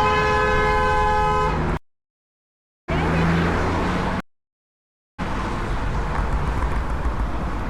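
A car horn sounds one steady, held blast for about a second and a half. The sound then drops out to dead silence twice, with stretches of traffic and road noise between and after the gaps.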